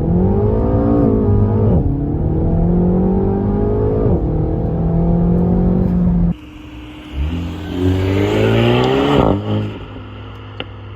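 Renault Mégane R.S. 300's 1.8-litre turbocharged four-cylinder accelerating hard, its pitch climbing and dropping twice at quick upshifts of the EDC dual-clutch gearbox. About six seconds in the sound cuts suddenly quieter, then the engine revs up once more and falls away.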